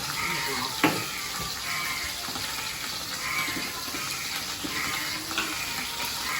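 Fish frying in hot oil in a pan, a steady sizzle, with one sharp utensil knock about a second in.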